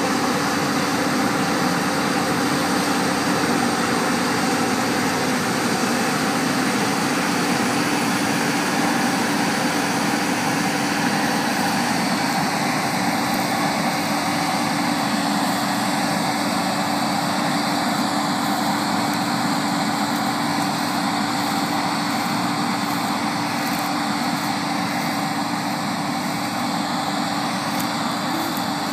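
New Holland CR9080 tracked combine harvester running steadily under load while harvesting, its engine and threshing gear making a constant drone with a steady low hum. The sound fades a little towards the end as the machine moves away.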